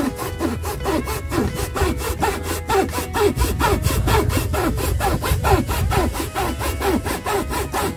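Quick, even back-and-forth sawing strokes on bamboo, about five or six a second, over faint background music.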